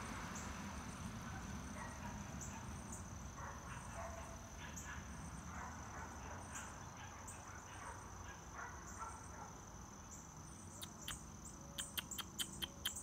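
Faint insects trilling steadily at a high pitch, with short chirps repeating about once a second. About two seconds from the end comes a quick run of sharp clicks.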